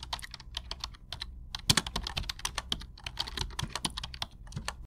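Keyboard typing sound effect: quick, irregular keystroke clicks over a low steady hum, cutting off abruptly at the end.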